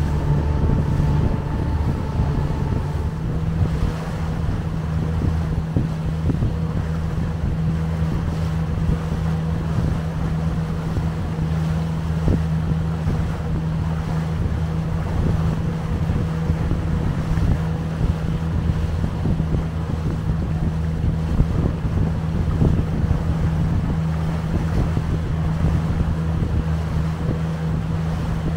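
Outboard engine of a small motorboat running at steady cruising speed, its tone stepping up slightly about three seconds in, with wind buffeting the microphone and water rushing past the hull.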